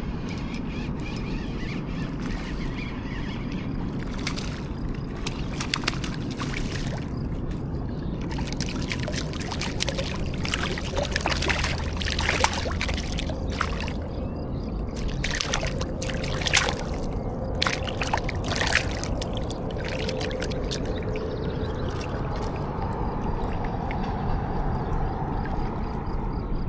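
Water sloshing and splashing over a steady background rush, with a run of short clicks and knocks through the middle, likely a hooked fish splashing at the surface as it is reeled in and landed.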